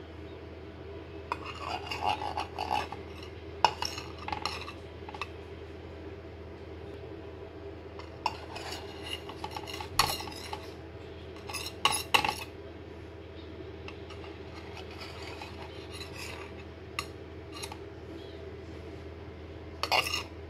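A metal table knife scraping and clinking against a steel idli mould plate in short bursts, prising freshly steamed suji idlis out of the moulds, over a steady low hum.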